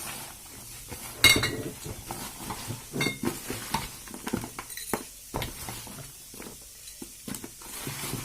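Kitchenware being handled: a loud ringing clink about a second in and another near three seconds, followed by a run of lighter taps and knocks.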